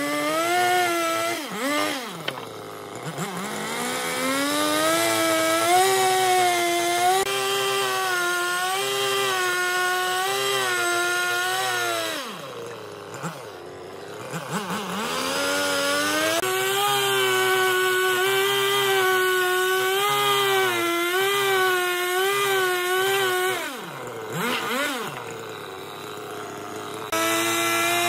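Husqvarna two-stroke chainsaw cutting through a log, its engine held high with a wavering pitch under load. It drops back toward idle and revs up again between cuts, about two seconds in, for a few seconds around the middle, and near the end.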